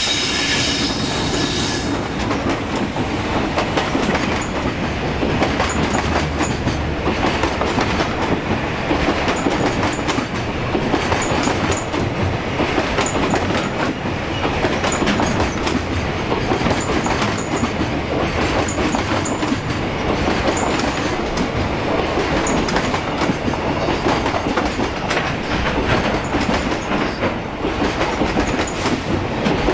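JR Freight EH500 electric locomotive passing with a whine for the first two seconds or so, followed by a long train of container wagons rolling by, the wheels clacking over rail joints with faint high squeaks now and then.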